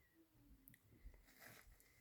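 Faint chewing of a cat eating, with soft crunchy clicks, the clearest about a second and a half in.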